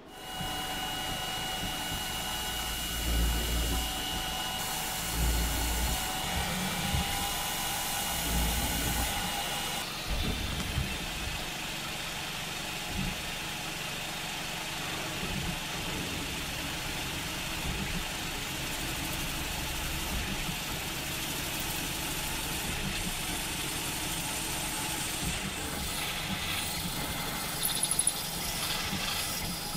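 Metalworking machine tool running steadily, a high whine over a hiss. The sound changes abruptly about ten seconds in to a denser, even hiss.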